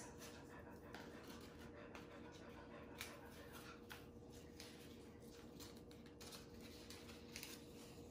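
Near silence with faint, scattered rustles and light ticks of a paper plate being handled as wool is threaded through the holes punched around its rim, over a faint steady hum.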